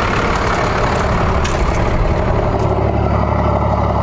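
First-generation Dodge Ram's twin-turbo Cummins inline-six diesel idling steadily, with a deep, even drone.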